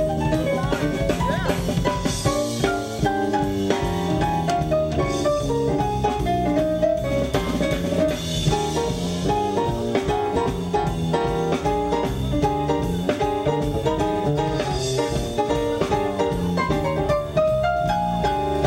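Live band playing a blues in B flat: electronic keyboard chords over a Pearl drum kit keeping a steady beat, with cymbal washes every few seconds.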